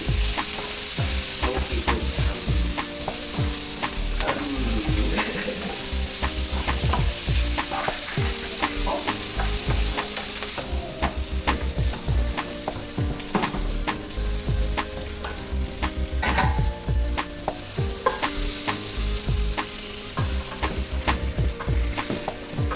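Chicken curry sauce with onions, carrots and bell peppers frying in oil in a pot with a steady sizzle, while a spoon stirs it, clicking and scraping against the pot.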